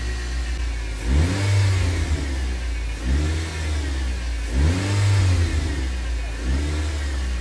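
The Enwix ATV's 1.8-litre, 145 hp engine idling, then revved four times with the handlebar throttle, each rev rising in pitch and falling back to idle.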